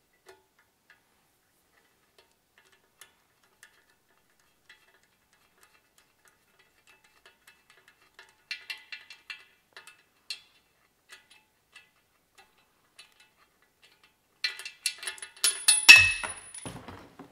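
Faint metal ticks and clinks of hand tools as a piston oil-squirter bolt is fitted into a BMW M52 engine block, with a quick run of clicks about halfway through. Near the end comes a louder clatter of metal on metal, with a thump and a short high ring.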